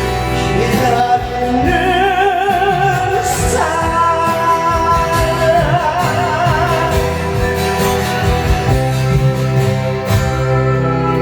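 Amplified live singing with instrumental backing: a voice holds long notes with a wide vibrato, climbing in pitch over the first few seconds.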